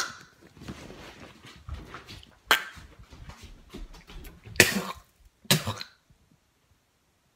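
A man coughing and gagging after a mouthful of pure citric acid powder: three hard coughs about two and a half, four and a half and five and a half seconds in, over rumbling handling noise from the phone, after a sharp knock at the very start.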